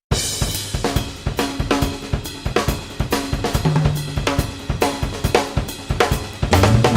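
A band playing, led by a drum kit keeping a steady beat of snare, bass drum and cymbals over bass notes; about six and a half seconds in, the music gets fuller and louder as more instruments come in.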